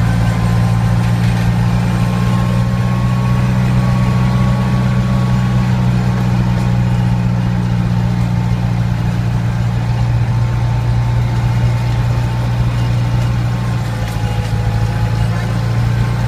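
Miniature train locomotive's engine running with a steady low drone as the train rolls along.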